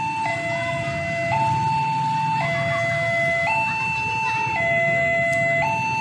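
Railway level-crossing warning alarm sounding its two-tone signal, a low and a high tone alternating about once a second, over a low rumble of road traffic. The alarm signals that the barrier is down for an approaching train.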